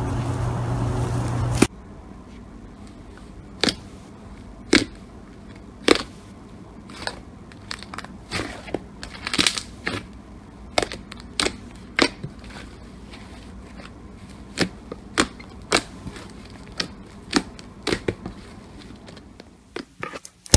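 Slime being squeezed and poked close to the microphone, giving sharp, irregular pops and clicks about one or two a second. The first second and a half is taken up by a louder steady hum and hiss that cuts off suddenly.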